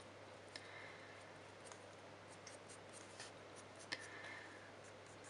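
Faint scratching of a Caran d'Ache Luminance coloured pencil (burnt ochre) stroking lightly over drawing paper, with a few light ticks from the pencil tip.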